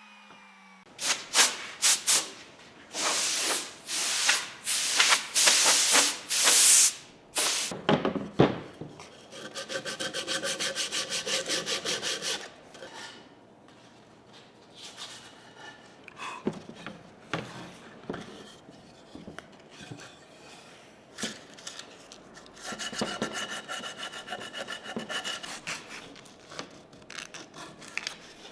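Hand tool work on a solid zelkova wood board: a run of loud rubbing, sawing-like strokes for the first several seconds, then quieter rhythmic scraping passes with a few light knocks in between.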